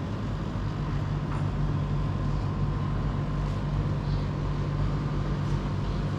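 Steady low mechanical hum, engine-like, with a faint constant whine above it.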